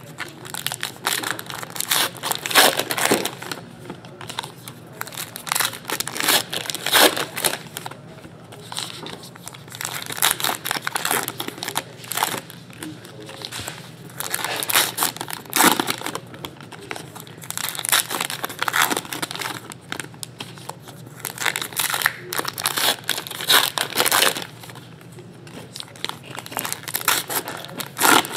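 Foil trading-card pack wrappers crinkling and tearing as packs are ripped open, in irregular bursts of crackling, with cards being handled in between.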